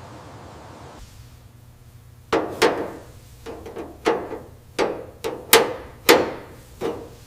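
A series of about nine sharp hammer blows on metal at an uneven pace, starting a couple of seconds in, each with a short ring.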